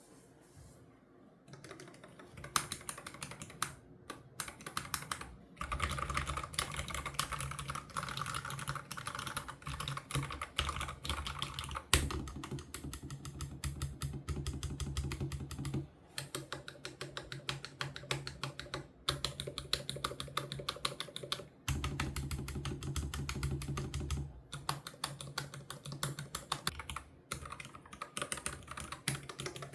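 Typing on a YUNZII L75 low-profile mechanical keyboard with Otemu red linear switches: fast runs of light keystroke clacks, broken by a few short pauses.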